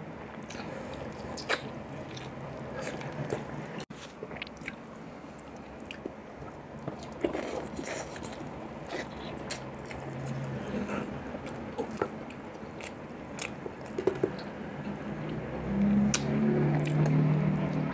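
Close-up mouth sounds of eating beef shank (bulalo): wet biting, sucking and chewing of meat and marrow off the bone, with many sharp smacks and clicks. A low hum, like a pleased "mmm", near the end.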